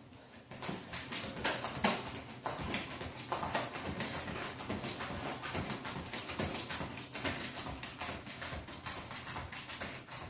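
Sneakered feet thudding and slapping on a hard floor in quick, fairly even footfalls, a few a second, from jogging and hopping in place during a cardio exercise.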